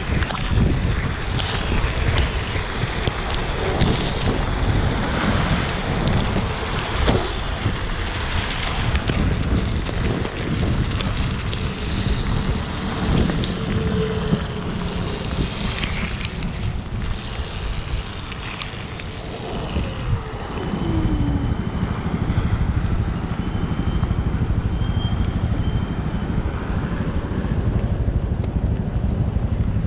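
Wind buffeting the microphone of a camera mounted on a moving electric scooter, with tyres hissing through water on wet pavement. It eases briefly about two-thirds of the way through as a short falling tone sounds, then builds again.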